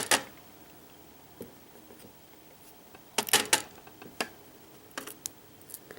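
Light, sharp clicks of small metal lock parts being handled while a Euro cylinder lock is taken apart: a couple of clicks at the start, a quick cluster of three or four about three seconds in, then a few scattered fainter ticks.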